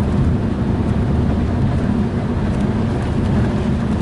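Steady low rumble of a car driving on a rain-wet highway, heard from inside the cabin: tyre and engine noise at cruising speed.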